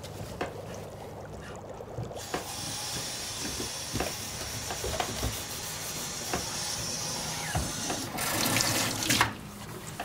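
Kitchen tap running into a sink, starting about two seconds in, with a few clinks of crockery being handled; the flow is louder for about a second near the end, then stops abruptly as the tap is shut off.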